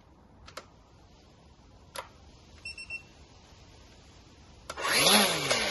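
Hyundai 40V cordless brushless strimmer being switched on and tried: a couple of switch clicks and two short beeps, then near the end the motor and line head spin up briefly and wind down again.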